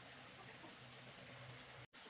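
Near silence: faint steady room tone with a low hum, briefly dropping out completely near the end.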